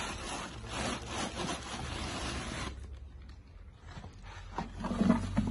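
A metal scoop digging and scraping through soda ash powder in a sack, the sack rustling, for the first few seconds; then a few knocks and thumps near the end.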